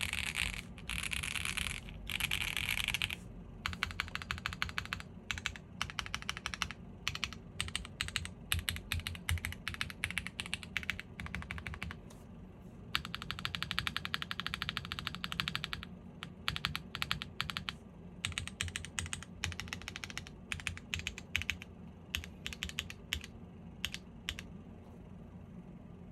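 Typing on a gasket-mounted Owlabs Jelly Evolv custom mechanical keyboard with stock WPJ Diamond Avalon switches, a polypropylene plate and GMK Striker keycaps: fast runs of keystroke clicks that thin out to scattered presses near the end.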